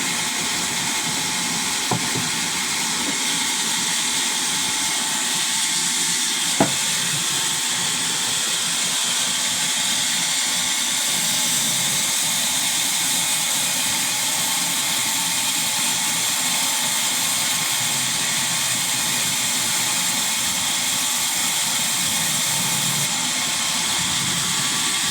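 Sawmill wood-cutting machinery running with a steady, hissing noise, broken by two sharp knocks, one about two seconds in and a louder one a few seconds later.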